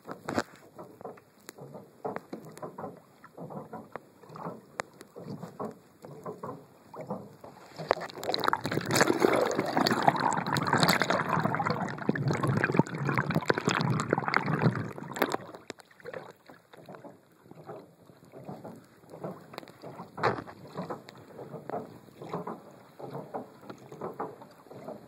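Water sloshing and splashing around a pedal-driven kayak, with scattered irregular knocks and clicks. In the middle, a louder stretch of rushing, splashing water lasts about seven seconds, then settles back to the lighter sloshing and knocking.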